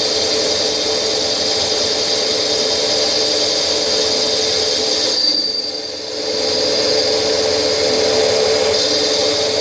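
CNC special-purpose machine for turning, milling, drilling and tapping running, a steady machine whine over a wash of noise that dips briefly about six seconds in and then comes back.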